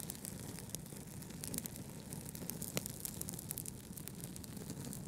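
Wood fire crackling, with irregular sharp pops and snaps over a low steady rumble.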